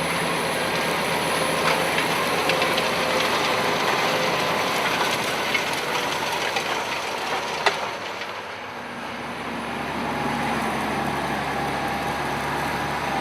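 Farm tractor running at work: a steady, noisy mechanical rumble with a couple of sharp clicks, easing briefly about eight seconds in before picking up again.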